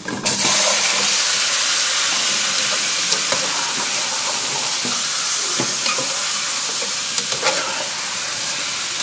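Raw chicken pieces going into a hot pan of sautéed onions and garlic, sizzling loudly as they sear. The sizzle starts suddenly just after the start and eases off slightly, with a few clicks from a utensil against the pan.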